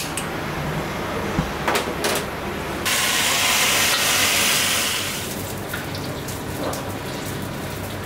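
Thick sauce hitting a very hot stone bowl and sizzling loudly for about two seconds, starting about three seconds in, over steady kitchen noise with a few clicks of utensils before it.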